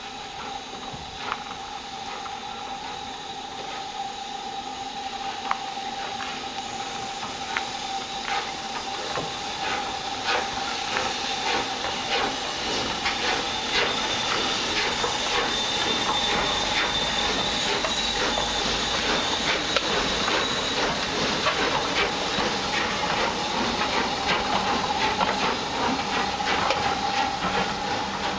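Steam locomotive hauling a train of coaches slowly past, steam hissing steadily with a constant tone running through it. Irregular clicks and clanks come from the wheels and running gear, and the sound grows louder as the train draws nearer.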